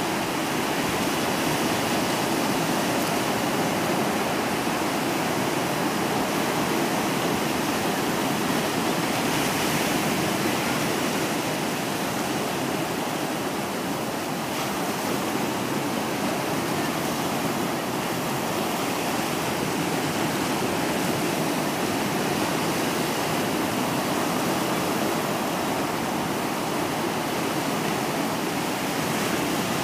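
Ocean surf at high tide: broken waves foaming and washing in over the sand and flat shore rock, a steady rushing wash that swells and eases only slightly.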